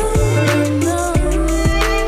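Background music: a beat with deep bass under a sliding melody line.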